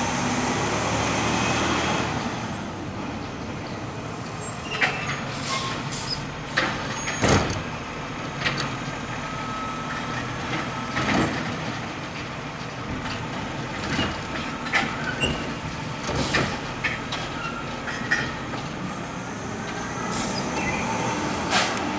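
Garbage truck engine running as it moves slowly along the street, with a dozen or so short, sharp hisses and knocks scattered through it.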